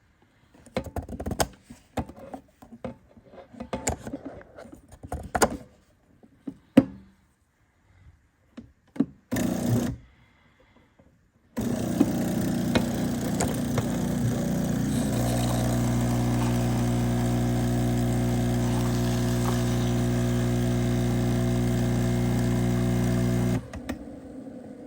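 De'Longhi Stilosa espresso machine's steam wand steaming milk in a metal pitcher: a loud steady hiss with a machine hum under it, starting about halfway through and cutting off near the end. Before it come scattered clicks and knocks of handling and a brief hiss.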